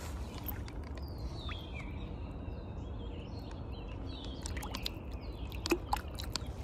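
Light water splashing and dripping as a fish is released by hand into a pond, the small splashes clustering late on. A bird calls with a few short falling whistled notes, over a steady low rumble.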